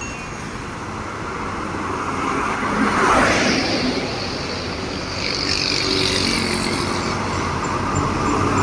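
Road traffic passing close by. One vehicle goes past about three seconds in with a falling pass-by sound, and the noise swells again toward the end as more traffic approaches.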